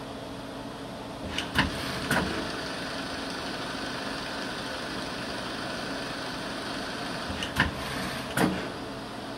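Mupem WIN 6500 CNC lathe running with a steady hum, its tool turret indexing twice. Each index gives a pair of clunks under a second apart, about a second and a half in and again near the end.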